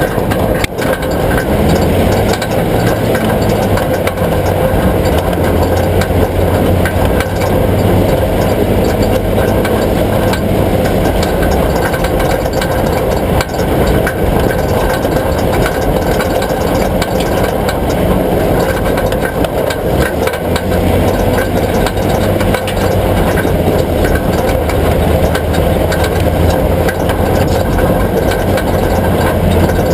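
A vehicle engine running steadily, its low hum shifting slightly in pitch now and then.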